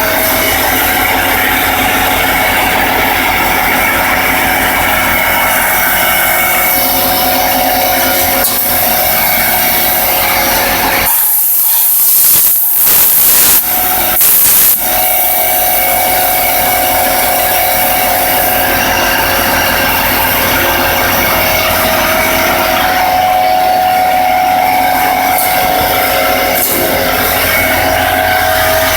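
CNC mill's spindle running with a steady whine of several held tones. Near the middle, a harsher, louder hiss takes over for about four seconds, then the steady running returns.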